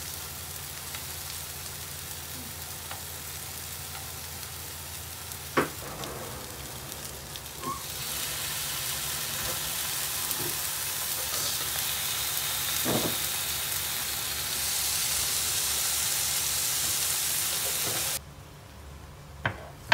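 Onion rings and strips of pork belly sizzling in oil in a nonstick frying pan. The sizzle gets louder about eight seconds in and again partway through, as the meat goes in, with a few sharp clicks of metal tongs against the pan. It cuts off suddenly near the end.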